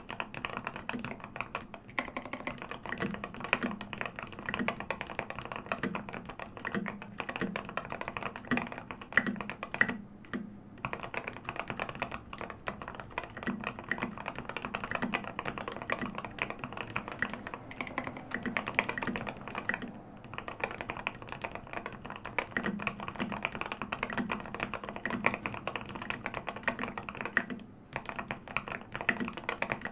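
Custom mechanical keyboard with lubed Gateron Ink Black linear switches, an aluminum plate and SA keycaps, being typed on quickly and continuously. The key strokes make a deep, dense clatter, with short pauses about ten seconds in, about twenty seconds in and near the end.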